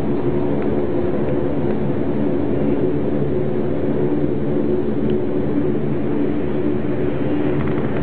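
Fokker 50 turboprop engine and propeller heard inside the cabin, running with a steady hum of several even tones over rushing noise while the plane taxis after landing.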